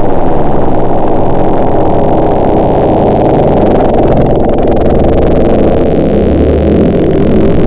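Chainsaw engine running steadily and loud, heard muffled with little treble, most likely through a window pane.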